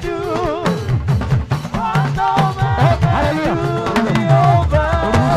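Live gospel praise music: a band's drums and percussion keep a busy beat under voices singing a wavering melody.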